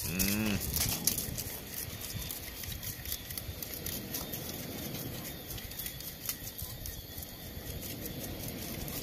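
Irregular small clicks and rustles of wet fish and beach pebbles being handled, over a steady background hiss, with a brief voice sound right at the start.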